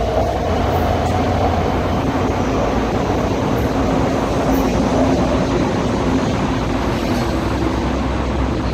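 Guangzhou Metro Line 14 train running at speed on elevated track, heard from inside the car: a steady rumble of wheels on rail with a faint motor whine.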